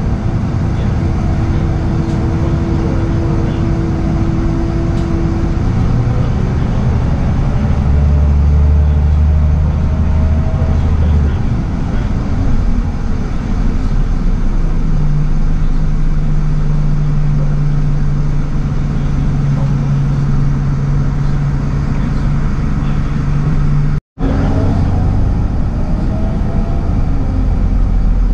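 Inside a Scania L94UB/Wright Solar single-deck bus on the move: its 9-litre five-cylinder diesel running under load, the engine note holding steady pitches and stepping to new ones several times, with a fainter gliding whine above it. The sound cuts out for a split second near the end.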